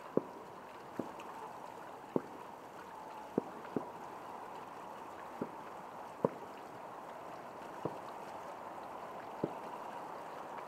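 Fireworks going off: about nine sharp bangs at irregular intervals of one to two seconds, over a steady background hiss.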